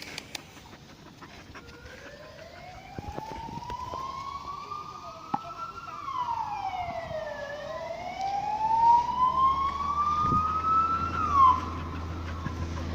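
Emergency vehicle siren wailing: a single tone that slowly rises, falls quickly, rises slowly again and drops near the end, growing louder as it goes. A low rumble joins in during the second half.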